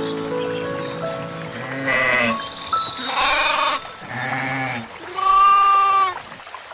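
Goats bleating four times in a row, the last call the longest and loudest, over soft background music. A bird chirps quickly several times near the start.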